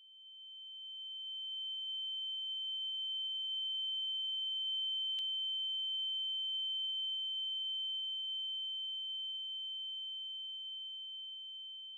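A steady, high-pitched electronic sine tone, swelling in over the first couple of seconds and slowly fading toward the end, with a faint click about five seconds in.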